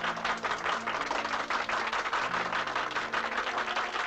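Audience applause, a dense steady clatter of many hands clapping, with a band playing held low notes underneath.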